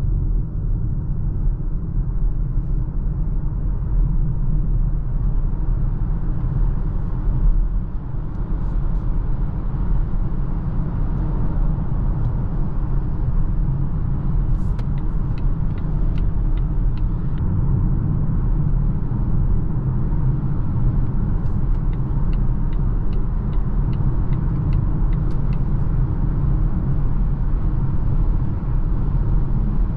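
Steady road and tyre rumble with wind noise inside the cabin of a 2023 Volvo XC40 Recharge all-electric SUV at highway speed, with no engine note. Two runs of faint quick ticks come in the middle and later on.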